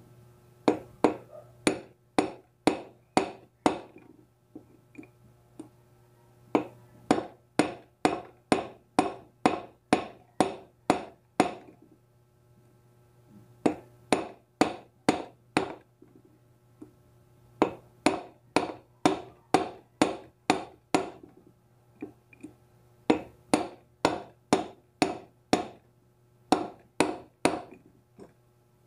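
A hammer tapping on the end of a steel pipe used as a drift to drive a 6902 cartridge bearing into a bicycle hub: runs of quick metal-on-metal taps, about three a second, with short pauses between the runs.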